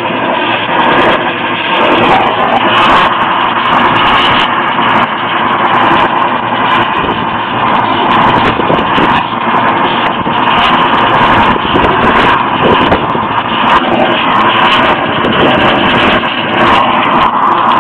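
Oxy-acetylene torch flame running steadily with a loud rushing hiss while it brazes copper tubing onto a filter drier.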